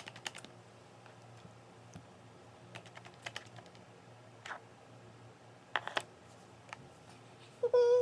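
Scattered light taps and clicks of objects being handled close to the microphone, coming in small clusters a second or two apart. Near the end a brief pitched sound, the loudest moment.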